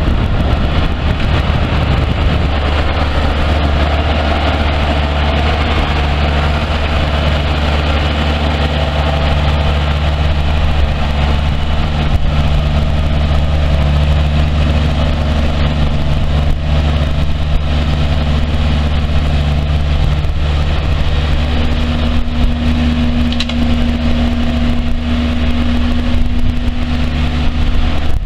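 Ford four-cylinder gas engine of a 1990 Hustler 400 front-deck riding mower running steadily as the mower drives across grass.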